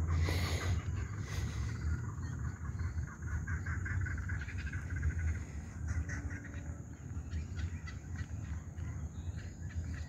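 Birds chirping and calling over a steady low rumble of wind on the microphone, with a brief louder gust at the start.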